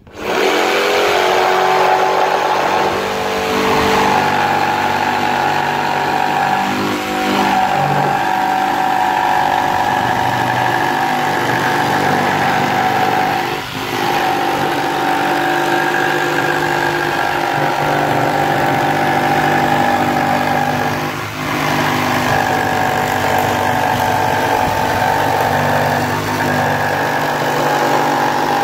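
Mafell P1cc corded jigsaw starting up and cutting a circle through a black-faced board on its pivoting circle guide. The motor and reciprocating blade run at a steady buzz, with a few brief dips as the cut works round.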